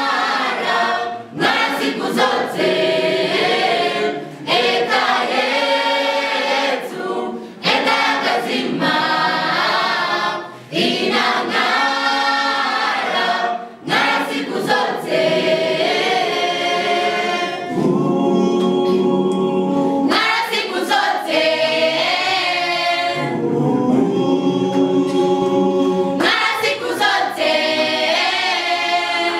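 Mixed choir of secondary-school students singing unaccompanied in several parts, in short phrases with brief breaks at first, then longer held chords in the second half.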